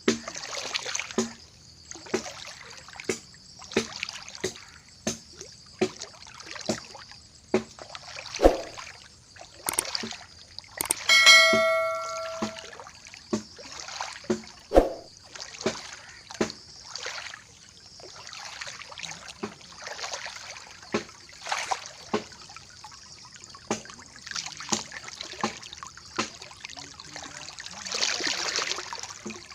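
Rushing floodwater hissing steadily, with sharp knocks coming roughly once a second, and a single ringing metallic clang about eleven seconds in.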